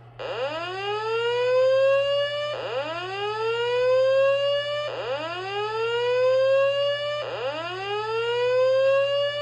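System Sensor SPSR fire alarm speaker strobe sounding the slow whoop evacuation tone: four rising sweeps, each about two and a half seconds long, each cutting off and starting again from the bottom. This is the alert tone played between the recorded voice evacuation announcements.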